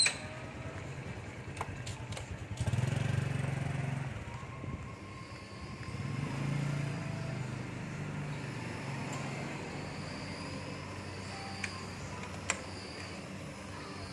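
Street traffic: a motor vehicle's engine hum swells and fades about three seconds in, and again a few seconds later, over steady outdoor street noise. There is a sharp click at the start and a couple of light ticks near the end.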